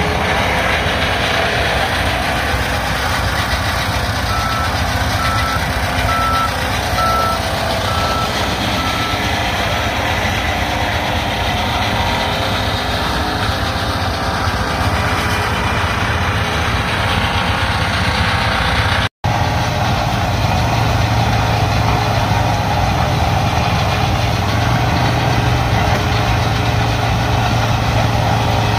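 John Deere T670i combine running steadily under load while harvesting corn, with a low drone throughout. A short run of evenly spaced beeps sounds about four to nine seconds in, and the sound cuts out for an instant about two-thirds of the way through.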